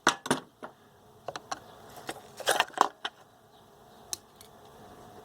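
Old corroded batteries being worked out of a portable radio's plastic battery compartment: a series of sharp clicks and knocks, loudest a little past two and a half seconds in, with one last click about four seconds in.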